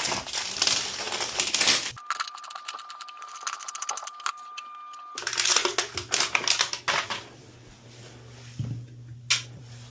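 Small metal parts clinking and clicking as closet bolts, washers and nuts are handled and fitted at a toilet flange, with a quieter stretch in the middle.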